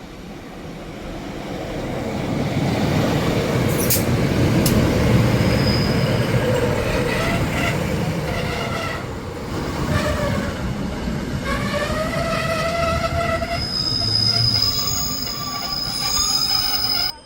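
Diesel train passing at speed: a rumble that builds over the first few seconds into a loud, sustained run with a pitched drone. A thin, high, steady wheel squeal joins near the end. The sound cuts off abruptly.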